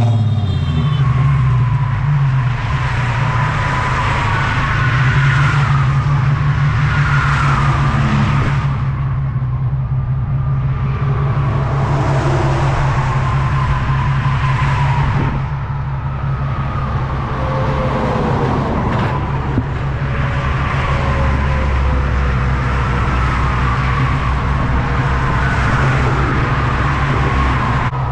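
Highway traffic going past in waves, each car's tyre and engine noise swelling and fading every few seconds, over a constant low rumble of wind on the microphone.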